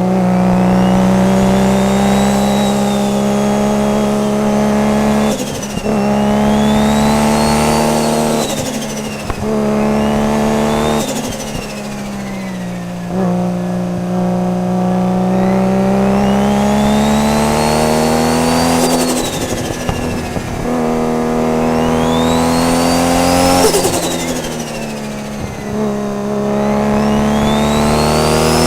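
Tuned turbocharged straight-six of a Nissan R32 Skyline GT-R accelerating through the gears. The engine note climbs steadily with each pull and breaks off at several gear changes, each with a short burst of noise, while a turbo whistle rises and falls with the throttle.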